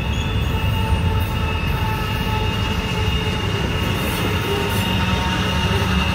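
Loaded intermodal freight cars carrying truck trailers rolling past while rounding a sharp curve: a steady low rumble of the wheels with a continuous high-pitched wheel squeal over it.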